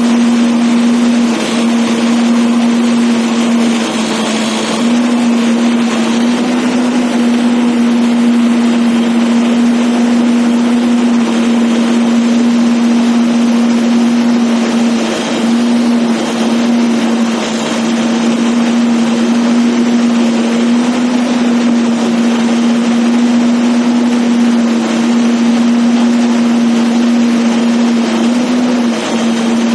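ACE backhoe loader's diesel engine running at a steady high speed, its note sagging briefly now and then as it takes load while the machine works.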